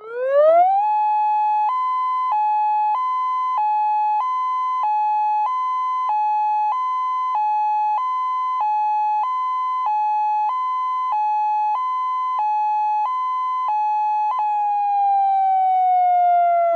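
Electronic warning-siren tone from a Federal Signal UltraVoice+ Giant Voice controller: a quick rising wind-up, then a hi-lo tone stepping back and forth between two close pitches about every 0.6 seconds. Near the end the alternation stops and the pitch slides slowly down as the tone winds down.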